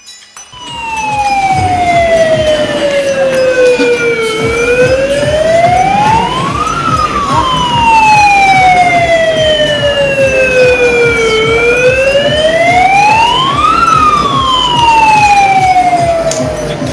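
A siren wailing, its pitch sliding slowly down and then quickly back up, repeating about every seven seconds, with a low rough noise underneath.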